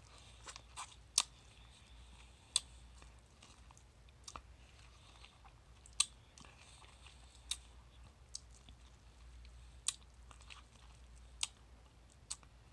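Close-up mouth sounds of someone sucking on and chewing a ripe mango: sharp wet smacks and slurps at irregular intervals, about a dozen in all.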